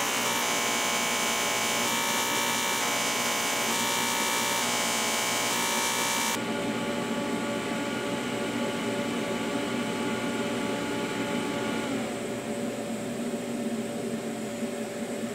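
AC TIG welding arc from a Miller inverter welder, buzzing with a steady pitched hum. Its tone shifts about six seconds in and again near twelve seconds as the AC frequency and amperage settings are changed on the machine.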